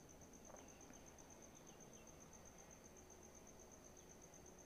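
Near silence with a faint, steady high-pitched trill pulsing about ten times a second.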